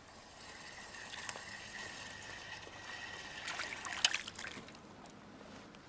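A hooked fish splashing and thrashing at the water's surface close beside the kayak, with light trickling of water; the splashes bunch together and are loudest about four seconds in.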